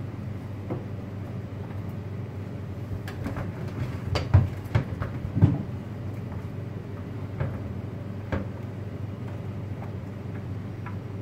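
Whole vegetables (green peppers and onion halves) being laid by hand into a stainless steel baking pan, giving scattered knocks and clatters, the loudest a cluster about four to five seconds in. A steady low hum runs underneath.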